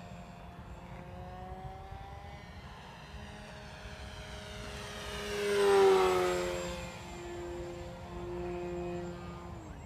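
Electric motor and propeller of an E-Flite Maule M7 radio-controlled model plane whining in flight, powered by a 4S LiPo battery. It passes close about six seconds in, growing loud and then dropping in pitch as it goes by, and its tone falls away sharply near the end.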